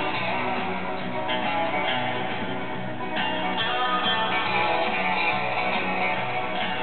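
Recorded guitar music playing through a homemade stereo single-ended valve amplifier built around CV2799 transmitter valves, heard from its loudspeaker; it grows a little louder and brighter about three seconds in.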